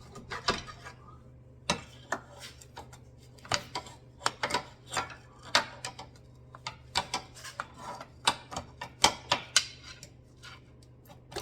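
Irregular light metallic clicks and knocks, one or two a second, from tools and metal parts being handled while working a car's CV axle loose, over a faint low steady hum.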